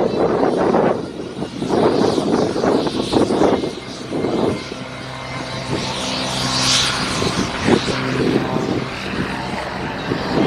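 Propeller aircraft flying at an airshow, engine droning. Irregular rushing noise in the first few seconds gives way to a steady droning tone.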